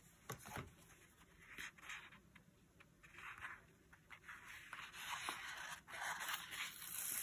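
Paper sticker sheets being handled: rustling and scraping, with stickers peeled off their backing in short rasping strips, a couple of light taps near the start and a longer scrape in the second half.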